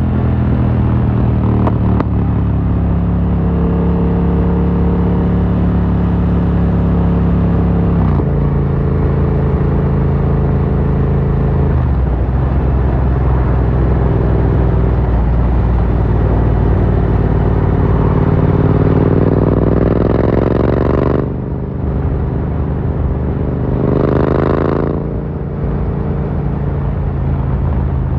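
Yamaha MT-07's parallel-twin engine through an Akrapovic carbon full exhaust, running under way. The note holds fairly steady with a couple of small drops in pitch, then the revs climb for several seconds and cut off suddenly about three quarters of the way through, followed by a short burst of throttle.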